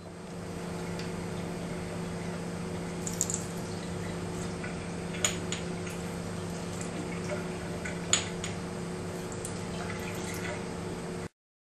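Thin stream of water from a kitchen tap running steadily over a hanging plastic teaspoon into a stainless steel sink, with a few sharper drips and splashes, over a steady low hum. The sound cuts off suddenly near the end.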